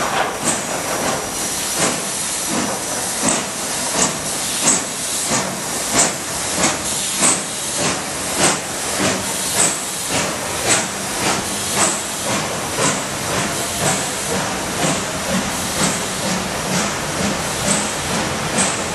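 Steam locomotive chuffing at a steady, even beat, each chuff a burst of steam exhaust over a continuous hiss of steam.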